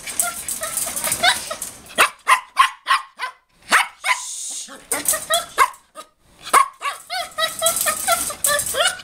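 A crated puppy yapping in runs of short, high-pitched yelps, several a second, that rise and fall in pitch: a puppy fussing to be let out of its wire crate.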